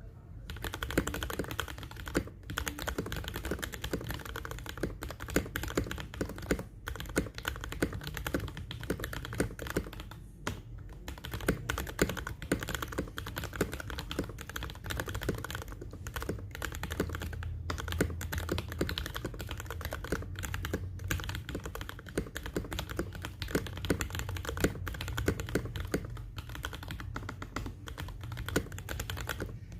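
Typing on a modded Royal Kludge RK84 mechanical keyboard with Gateron Milky Yellow linear switches, Poron case foam and FLCMMK Fulin v3 stabilizers: a fast, steady stream of keystrokes with a few brief pauses.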